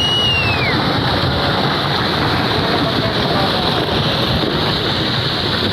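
Steady loud rushing noise with wind buffeting the microphone; near the start a short high call rises and then falls in pitch.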